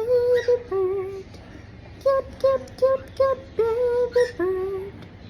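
A woman's voice humming the little teaching tune without words: the end of one phrase, then, about two seconds in, the whole phrase again. Each phrase is four short even notes, a longer held note and a lower closing note, repeated for a pet cockatiel to learn.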